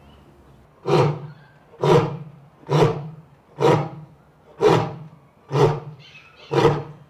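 A big cat calling: a series of seven hoarse, evenly spaced roaring grunts, about one a second.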